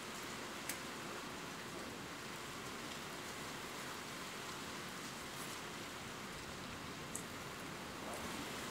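Steady rainfall ambience: an even hiss of rain, with a couple of sharp ticks a second in and near the end.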